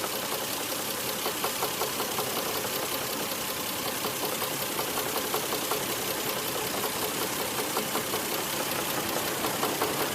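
Toyota 1JZ-GTE 2.5-litre turbocharged straight-six running steadily with a fairly loud, regular knocking from around the engine, a "kon-kon, koto-koto" noise. It comes on once the engine has warmed up, and its cause is not yet known.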